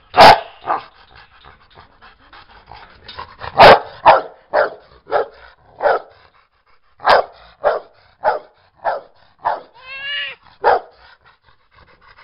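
Rottweiler barking: two loud barks, one near the start and one about four seconds in, then a steady run of shorter barks and pants about every half second, with one rising-and-falling whine about ten seconds in.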